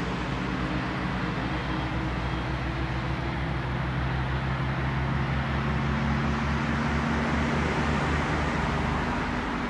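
Steady low engine hum over a rushing noise, like road traffic, swelling a little past the middle.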